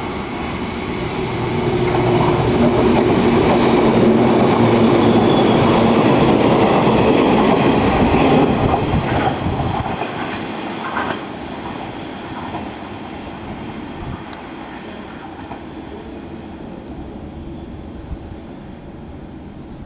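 The 413-series electric multiple unit of the 'Ichimansanzenshaku Monogatari' sightseeing train running along the station track. Its motor hum and the rumble and clack of its wheels grow loudest over the first half, then fade steadily.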